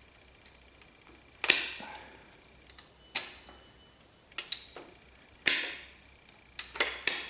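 Sharp metal-on-metal strikes, about eight at uneven spacing, each with a short ring, as a stuck lifter in a seized small-block Chevy 350 is worked at. The owner puts the lifters' refusal to come out down to mushroomed lifter bottoms.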